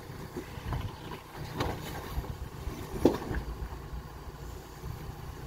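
Off-road vehicle's engine running at low speed as it crawls over rocks, with a few short knocks, the loudest about three seconds in.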